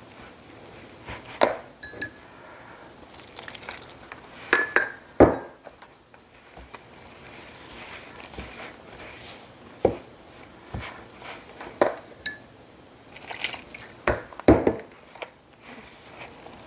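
Wooden spoon stirring stiff flour-and-milk pretzel dough in a glass mixing bowl: soft scraping with irregular knocks of the spoon against the bowl, a few of them ringing briefly.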